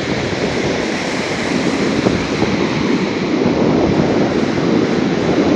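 Stormy Black Sea surf breaking onto the shore, a steady loud rush of waves with wind blowing over the microphone.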